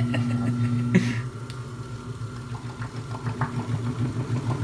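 Bowling ball spinner motor running with a steady low hum as a ball turns on it for polishing, with a few faint clicks.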